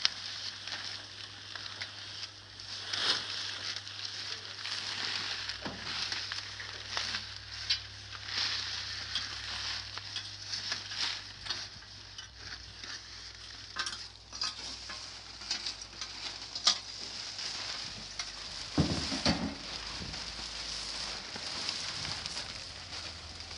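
Plastic sheeting crinkling and rustling as it is slit with a utility knife and pulled away from a truck bed's side, a steady crackle of small clicks throughout. A heavier dull thump comes about three quarters of the way through.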